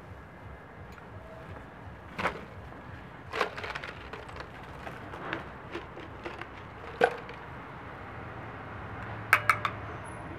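Scattered sharp wooden clicks and knocks, a handful spread out and a quick run of three near the end, as sticks and ritual items are handled at a lit havan fire pit.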